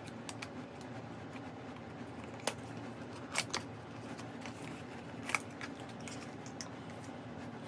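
A skincare product's packaging being opened and handled: a few scattered light clicks and taps over a faint steady hum.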